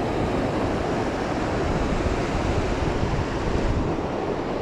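Steady rush of the Poudre River's flowing water.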